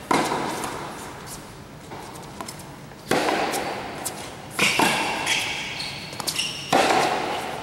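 Tennis ball struck by racquets and bouncing on a hard court during a backhand rally: four sharp hits with smaller knocks between, each ringing out in the echo of a large covered hall. High shoe squeaks on the court come in the middle of the rally.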